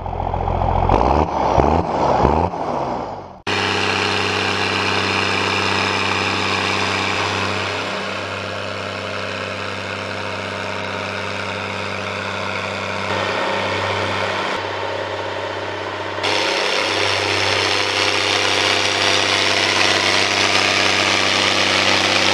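New Holland G210 tractor's engine running steadily under load while pulling a 6 m Maschio Gaspardo rotary harrow, an even drone. The first three seconds hold a different sound whose pitch sweeps up and down.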